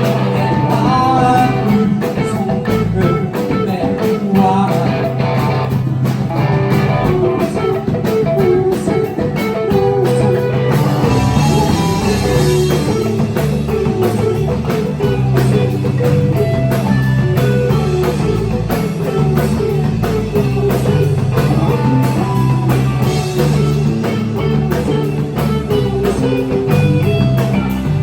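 Indie rock band playing live: electric guitar over a steady bass line and drums, with some singing.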